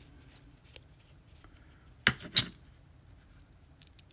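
Small metal parts of a lock being taken apart, handled on a work surface: faint ticks, then two sharp metallic clinks in quick succession about two seconds in.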